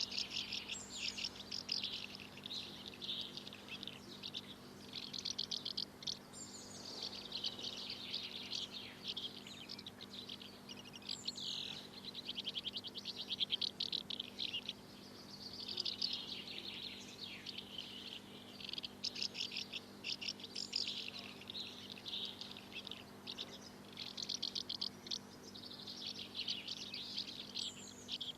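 Birds chirping in long runs of rapid, high chirps with short pauses between them, and now and then a brief falling whistle.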